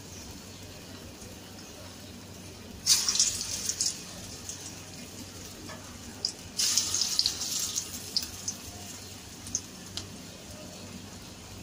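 Peyaju (lentil-and-onion fritters) deep-frying in hot oil in a steel pot, at medium-high heat: a steady sizzle with scattered pops. Twice, about three seconds and six and a half seconds in, the sizzle suddenly turns loud as fresh balls of batter go into the oil.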